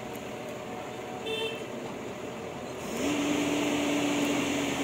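JCB excavator's diesel engine and hydraulics running steadily. About three seconds in they grow louder as a steady whine slides up a little in pitch and then holds, as the machine works under load.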